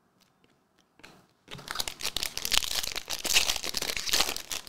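Foil wrapper of a 2023-24 Panini Prizm basketball hobby pack crinkling as it is torn open by hand, starting about a second and a half in and going on to the end with many small crackles.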